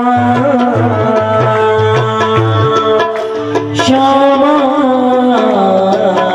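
Instrumental interlude of a Hindi devotional bhajan: a melody in long held notes over a steady hand-drum beat.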